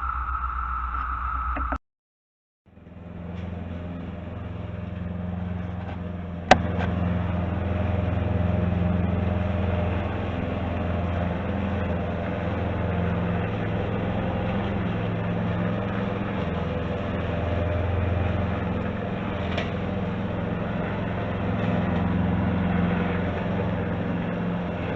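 A brief steady drone of 17-year periodical cicadas, cut off after under two seconds. Then a small lawn mower engine runs steadily, swelling up, with a sharp click about six seconds in, after which it runs louder.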